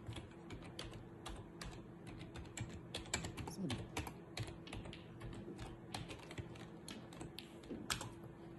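Typing on a computer keyboard: a quick, irregular run of key clicks, several a second.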